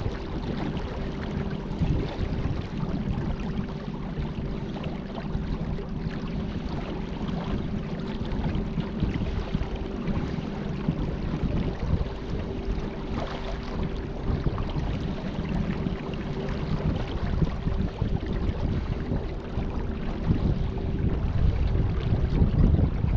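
Two battery-powered electric trolling motors of 50-pound thrust each, running steadily together with a constant hum, over a rushing noise of water and wind.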